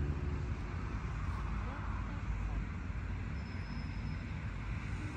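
Steady low outdoor rumble, with faint distant voices.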